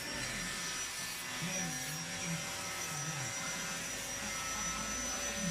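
A steady mechanical hum with a thin, high, constant whine over it, like a small electric motor running, and faint indistinct voices underneath.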